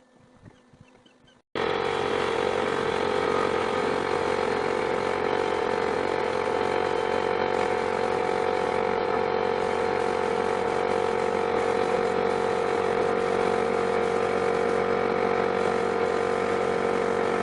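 A machine drone that switches on abruptly about a second and a half in, then runs loud and perfectly steady with an unchanging hum.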